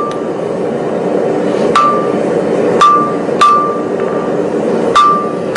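Hand forging hammer striking a red-hot 4140 steel hammer head held in tongs on an anvil. Four unevenly spaced blows, each with a sharp clang and a brief ring.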